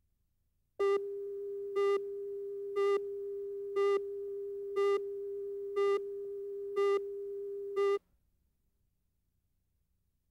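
Tape countdown leader audio: a steady test tone with a louder beep once a second, eight beeps in all, cutting off suddenly about eight seconds in.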